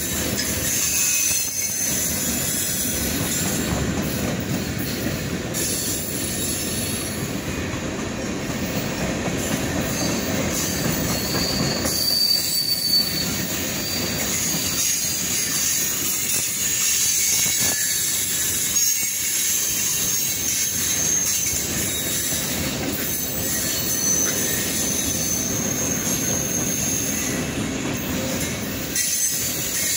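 Freight cars of a long mixed freight train (boxcars, tank cars, covered hoppers) rolling past close by: a steady rumble of steel wheels on the rails, with thin high wheel squeal drifting in and out.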